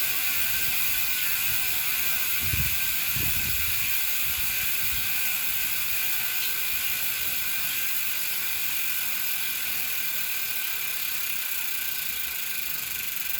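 Saturn Calypso bicycle hub's 4-pawl freehub ratchet buzzing as the wheel coasts, a fast steady run of clicks that gradually grows a little quieter.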